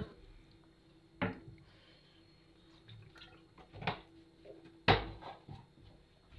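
Kitchen clatter while cooking: three sharp knocks of utensils or containers, about a second in, near four seconds and the loudest near five seconds, with faint handling noises between.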